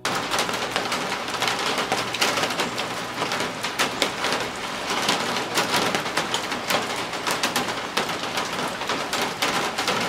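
Steady heavy rain falling, with many separate drop hits on a nearby surface.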